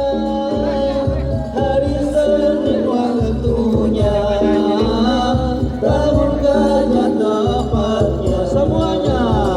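Music with a steady low beat and a melodic lead line: the introduction of a sholawat song, before the vocal verses begin.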